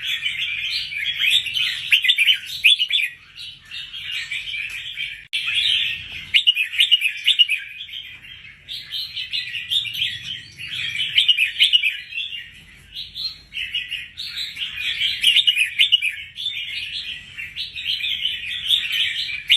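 Red-whiskered bulbul singing: long runs of quick, bright chirping phrases, broken by short pauses a few times.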